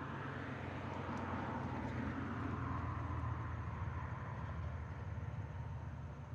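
A road vehicle passing by: tyre and engine noise swells to a peak about two to three seconds in, then fades away.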